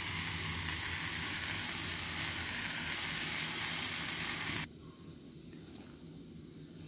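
Peas, onions, chillies and masala frying in hot oil in a small pot, a steady sizzle that cuts off abruptly about two-thirds of the way through.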